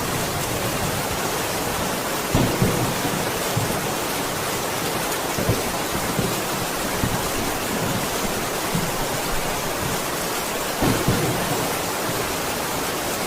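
Steady heavy rain hissing, with low thunder rumbles now and then, the strongest about two and a half seconds and eleven seconds in.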